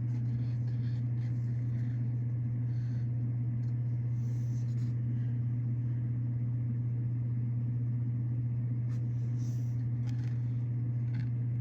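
A steady low hum, unchanging throughout, with a few faint soft rustles about four and nine seconds in.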